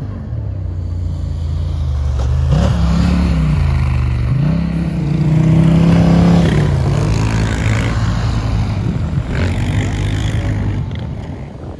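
Quad bike (ATV) engine running and revving up twice, its pitch held highest in the middle, then dropping back and fading toward the end.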